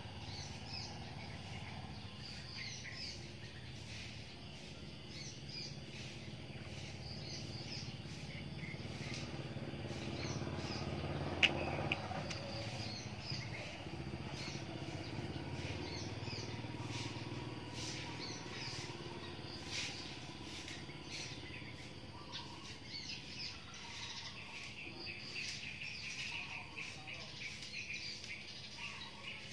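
Small birds chirping on and off over a steady low background hum, with one sharp click about halfway through.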